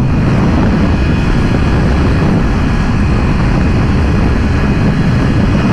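Steady rush of wind on a helmet-mounted microphone at highway speed, with the 2022 BMW S1000RR's inline-four engine running underneath.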